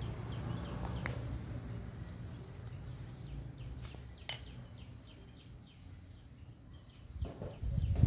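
Small birds chirping in a quick, steady series of short downward-slurred calls over a low rumble. The rumble grows louder near the end.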